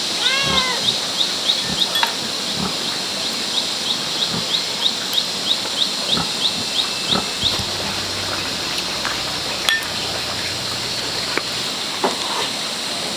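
Rhythmic high chirping, about three short chirps a second, that stops about seven and a half seconds in. About half a second in, an animal gives a brief pitched cry. A few light clicks of chopsticks against a porcelain bowl are also heard.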